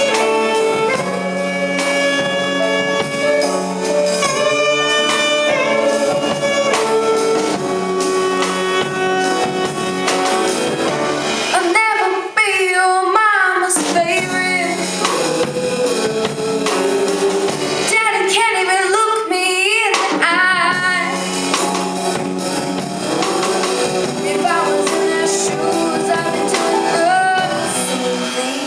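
Live band playing a slow soul-pop ballad: saxophone melody and singing over piano, bass and drums. Twice the bass and drums drop out under a wavering, ornamented vocal run.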